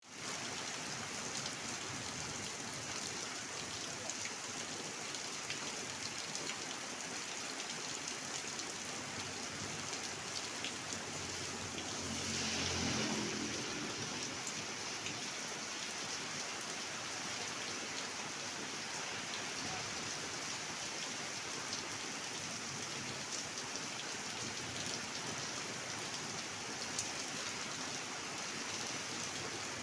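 Steady rain falling and pattering on surfaces, with scattered individual drops ticking. About twelve seconds in, a brief louder low rumbling swell rises over it and fades.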